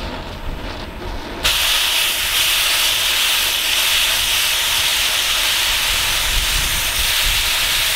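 Oxy-acetylene cutting torch melting through an aluminum AR-15 lower receiver: a lower flame hiss, then about a second and a half in a sudden jump to a loud, steady hiss as the torch's cutting oxygen stream is opened.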